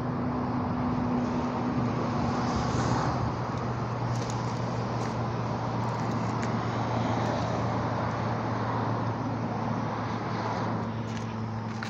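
Steady road traffic noise with a low, even hum underneath and a few faint clicks.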